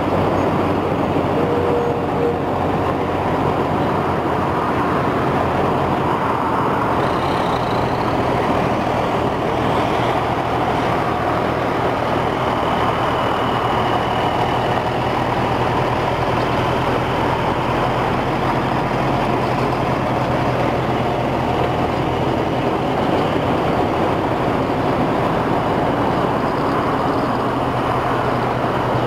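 Diesel engine of a 1996 Freightliner semi tractor running steadily as the truck pulls a hopper trailer slowly past.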